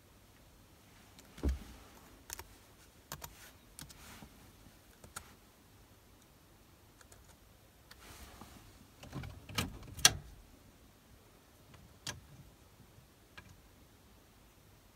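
Irregular clicks and knocks of hands handling equipment, with a low thump about a second and a half in and the sharpest, loudest clicks around ten seconds in.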